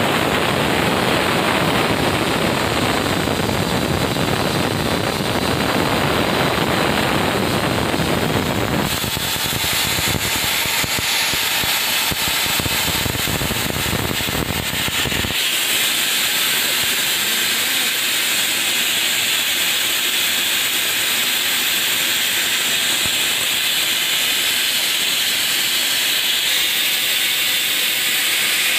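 Steady loud hiss of air escaping from a railway coach's air-brake pipes. A low rumble underneath drops away suddenly in two steps, about 9 and 15 seconds in, leaving a high hiss.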